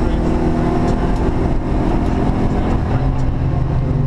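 Subaru Impreza rally car's flat-four engine running hard, heard from inside the cabin over road and tyre noise; the engine note shifts lower about three seconds in.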